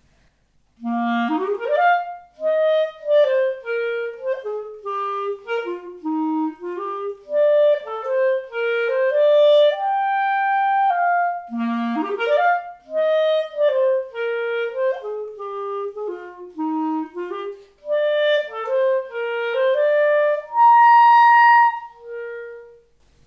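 Buffet clarinet playing an unaccompanied melody: a quick run up from a low note into a phrase that steps downward and climbs again, played twice. It ends on a long high note and a short lower one.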